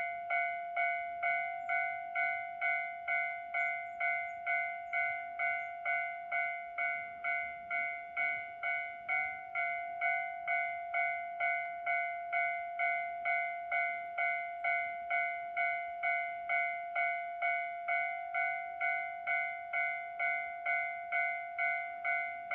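Railway level-crossing alarm bell ringing steadily at a little under two strikes a second, each strike fading before the next: the warning that a train is approaching.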